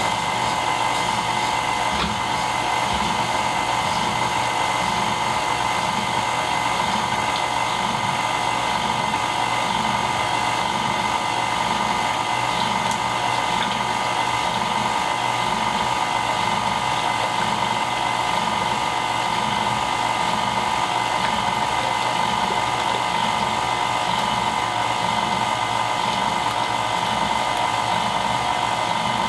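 KitchenAid 4.5-quart Ultra Power stand mixer motor running steadily at its lowest speed, driving the ice cream maker attachment's dasher: a constant motor whine with a low, regular pulsing underneath.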